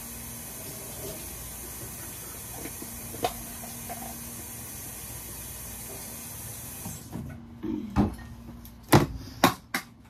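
Kitchen tap running in a steady hiss, shut off about seven seconds in, followed by four or five sharp knocks.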